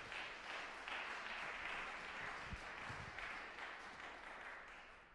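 Audience applauding, the clapping dying away near the end, with a couple of soft low thumps about halfway through.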